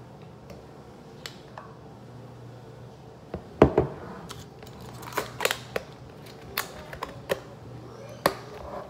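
Plastic smoothie cups knocking and clacking against a kitchen countertop as they are handled and set down, with a lid being pressed on. There are about seven sharp knocks, starting about three and a half seconds in, and the first is the loudest.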